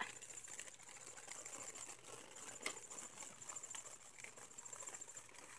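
Faint, high, rapidly pulsing insect trill that breaks off briefly about two seconds in, with a light tap near the middle.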